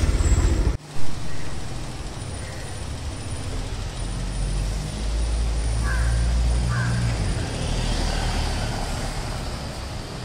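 A vehicle engine running with a steady low hum, and a single sudden thump about a second in.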